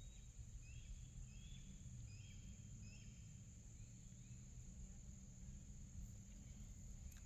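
Quiet outdoor ambience: a short series of faint, high bird chirps in the first three seconds, over a steady high insect drone and a low rumble.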